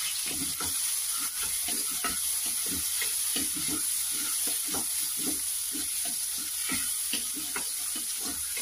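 Chopped tomatoes and small onions sizzling in hot oil in a pan while a wooden spoon stirs them, with a steady hiss and repeated short scraping strokes, a few a second.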